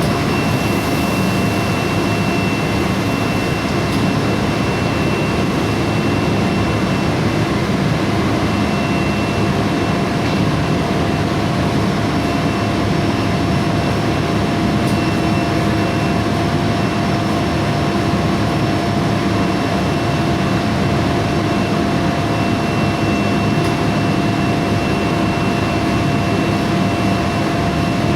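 A 200 kW induction melting furnace running: a constant roar with a steady high whine over it, unchanging throughout.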